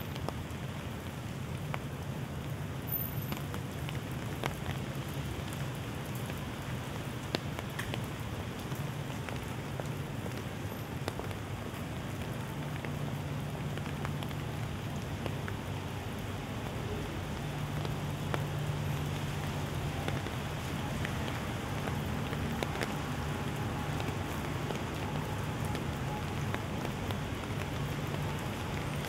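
Steady rainfall with many scattered sharp drip ticks, over a low steady hum underneath.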